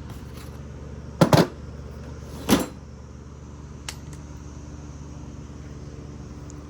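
Hard knocks and clunks from the chainsaw being handled and set about: a double knock about a second in, a single one a second later and a faint click, over a steady low hum. The saw is not running.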